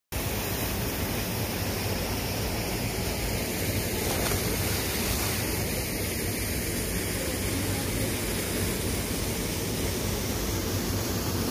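Steady, even rush of river water tumbling over rocks in a small cascade.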